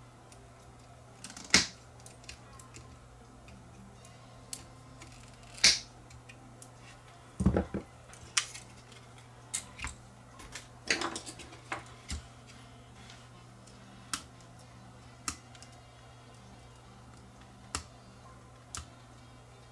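Scattered clicks, clinks and light knocks of hand tools and circuit boards being handled on a silicone work mat, over a faint steady low hum.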